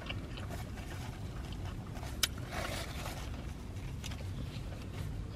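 Low steady rumble of a car cabin, with faint rustling of a paper napkin being used to wipe the mouth and one sharp click a little past two seconds in.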